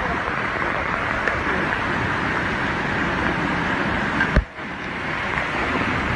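Steady rushing noise from a landslide pouring down a mountainside onto a road, heard from a vehicle. A single thump comes about four seconds in, then the sound briefly drops away and builds back.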